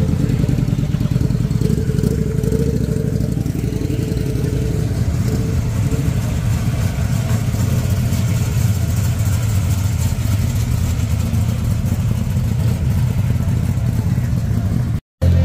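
Steady low engine rumble as vehicles pull out across a car park: first a custom cruiser motorcycle rides off, then a classic Ford Falcon sedan drives away. The sound breaks off for a moment near the end.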